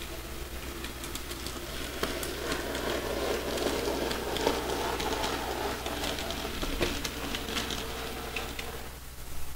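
N gauge Graham Farish Ivatt 2MT model locomotive and its coaches running past on the track: a small motor's whir with wheels clicking over the rails. It swells as the train passes close and fades away near the end.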